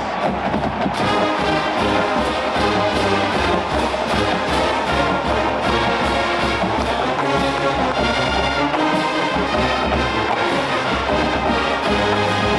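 Marching band playing loudly: brass section carrying the tune over a steady drum beat.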